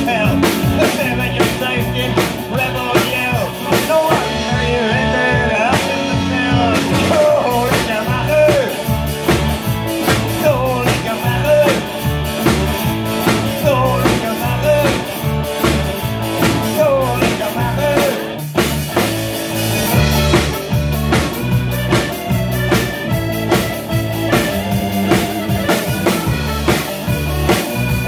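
Live folk-rock band playing with a steady beat: drum kit, guitar and accordion, with some singing.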